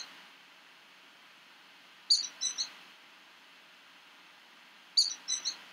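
A songbird singing a short phrase of about four quick, high notes, heard twice about three seconds apart.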